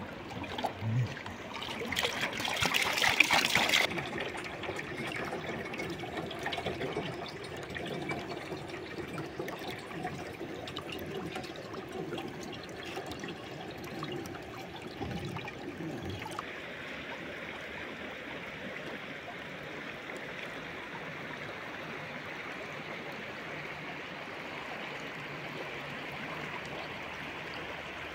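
Spring water running and trickling into a plastic jerrycan as it is filled, loudest a few seconds in. About halfway through it changes suddenly to the steady rush of a shallow stream over stones.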